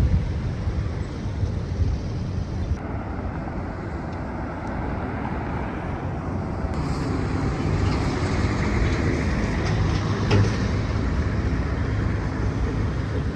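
Outdoor ambience: a steady low rumble with hiss, and a brief click about ten seconds in.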